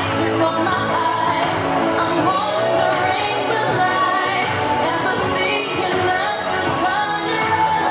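Pop music with singing, playing steadily.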